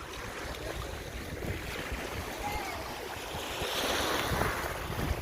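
Sea waves washing against the shore, with wind rumbling on the microphone; one wave surges louder about four seconds in.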